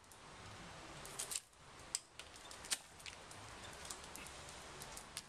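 Hand pruners snipping through tomato plant stems: a few separate sharp clicks, about a second or so apart, over a faint hiss.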